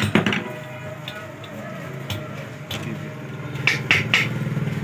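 Sharp clicks and knocks of the pedestal fan's metal motor parts being handled, a cluster at the start and a few more scattered later, over a steady low hum.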